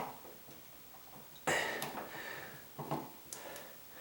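Plastic outlet cover plate being handled and tried over a GFI outlet: a few light clicks, with a louder rustling handling sound about a second and a half in.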